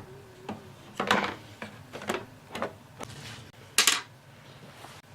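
Hard plastic parts of an ultrasonic humidifier being handled and fitted together: a series of irregular clicks and knocks, the loudest about four seconds in.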